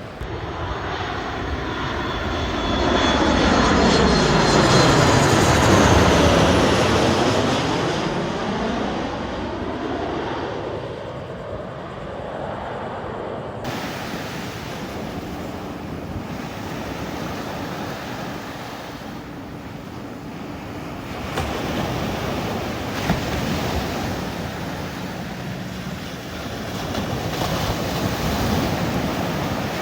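An aircraft passes low overhead. Its engine noise swells to its loudest about five seconds in, sweeping in pitch as it goes over, then fades to a steady distant rumble that swells again twice before the end.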